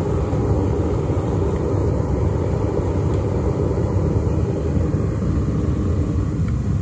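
Propane burner firing into a homemade foundry furnace, a continuous low rushing noise that holds steady, with aluminium melting in the crucible inside.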